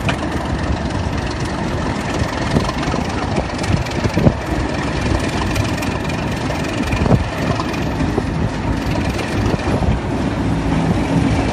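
Class 37 diesel locomotive's English Electric engine running steadily as the locomotive moves slowly along the track. Scattered short knocks from the wheels over the rails come through, several seconds apart.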